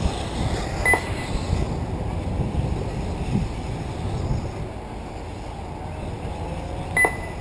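Wind buffeting the microphone as an uneven low rumble, with two short electronic beeps, one about a second in and one near the end.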